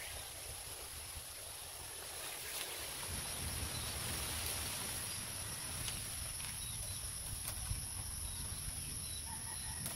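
Thin bamboo strips being threaded and bent through a woven bamboo basket frame, giving a few faint light ticks. Over a steady high insect drone and a low wind rumble on the microphone.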